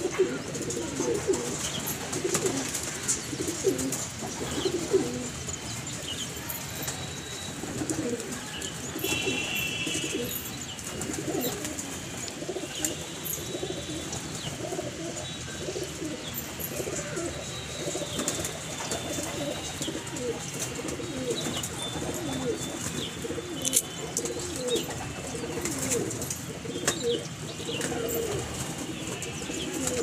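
A flock of domestic pigeons cooing continually, many birds overlapping, with scattered light clicks. A short higher chirp comes about nine seconds in.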